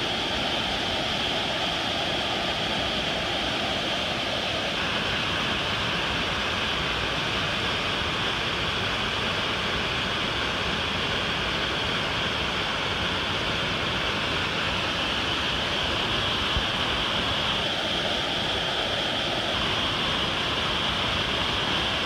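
Creek waterfall pouring over a rock ledge: a steady, even rush of falling water.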